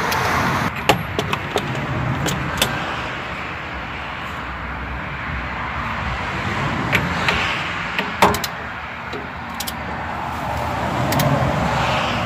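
Scattered sharp metallic clinks of tools and small hardware being handled, a few in the first seconds and a pair about eight seconds in, over a steady hum of road traffic that swells near the end.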